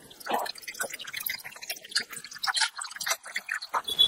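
Water dripping and splashing in quick, irregular drops.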